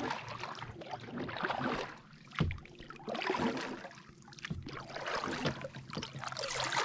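Double-bladed kayak paddle strokes: the blades dip and pull through the water and drip as they lift, in a steady rhythm of about one stroke every second and a half. A single knock about two and a half seconds in.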